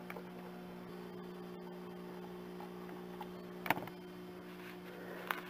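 Steady low electrical hum at a few fixed pitches, with a few faint clicks, the clearest about two-thirds of the way through.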